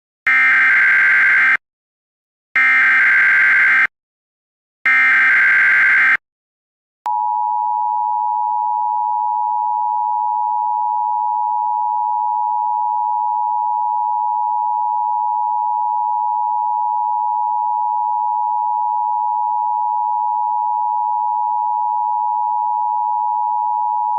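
Emergency Alert System test: three short, harsh SAME header data bursts about a second apart, then, about seven seconds in, the steady two-tone EAS attention signal starts and holds.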